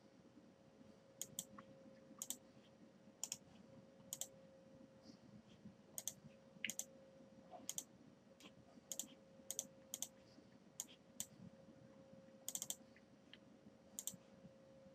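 Faint, irregular clicks of a computer keyboard, one or two a second, over a faint steady hum.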